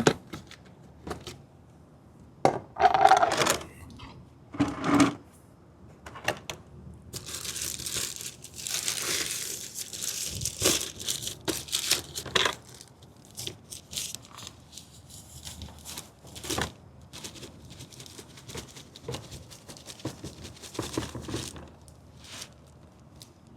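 Scattered clicks and knocks as a container of dry quick-setting cement mix and a mixing pan are handled, with a few seconds of gritty hiss about seven seconds in as the dry mix is poured into the pan.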